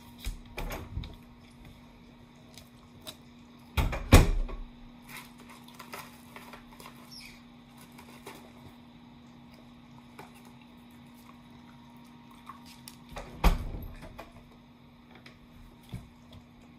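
A dog eating fries off a plate on a wooden floor: scattered small clicks, taps and chewing sounds over a faint steady hum, with two louder thumps, one about four seconds in and one about thirteen seconds in.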